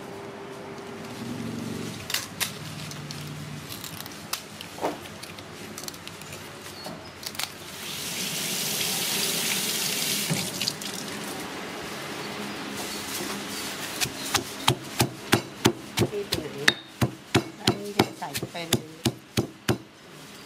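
Tap water running into a steel sink for a few seconds, with scattered knocks and clatter around it. Then a pestle pounding in a stone mortar, about three sharp strikes a second through the last several seconds.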